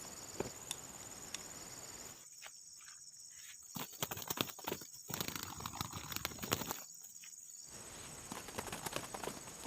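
Irregular light clicks and taps, scattered and uneven, thickest in the middle few seconds.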